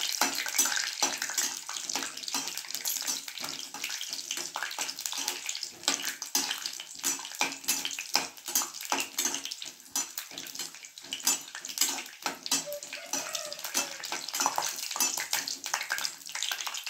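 Hot oil sizzling and crackling as cashews, bay leaves and whole spices fry in a nonstick kadai, stirred with a steel spatula. It is a dense, even crackle throughout.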